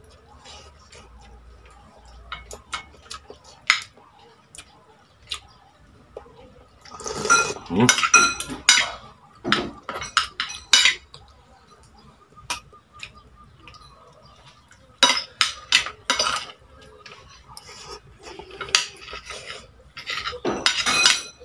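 Metal fork and spoon clinking and scraping against a plate while eating, in several clusters of quick clinks.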